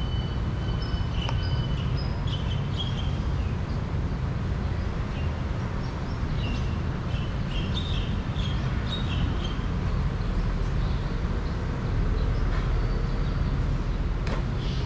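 Street ambience: a steady low rumble of passing traffic, with small birds chirping several times over it.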